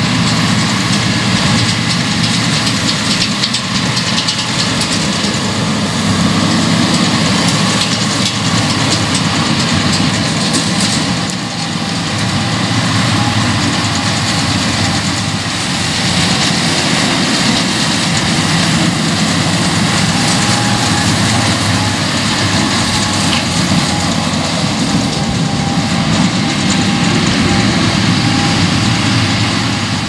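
Massey Ferguson 8S tractor running under load, pulling a Massey Ferguson 2270XD large square baler that is baling straw. The engine sound is steady, and the baler's mechanism adds a rhythmic clatter.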